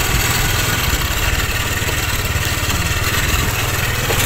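Small motorcycle with a passenger sidecar, its engine running at an even, steady pace while riding along a dirt track.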